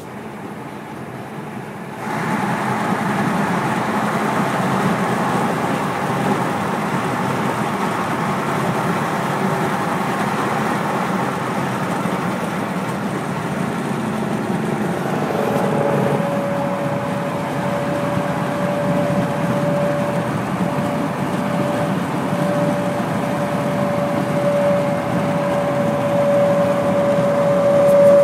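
Road noise from a vehicle at highway speed among tractor-trailers: a steady rush of tyres and wind that jumps louder about two seconds in. About halfway through, a steady single tone sets in and stays.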